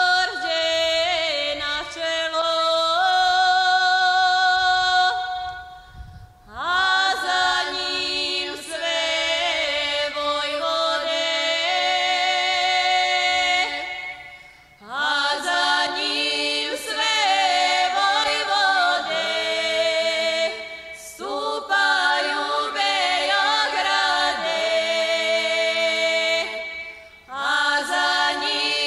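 Female vocal quartet singing a cappella in close harmony, with no instruments. The song runs in long held phrases broken by short pauses about every six to seven seconds.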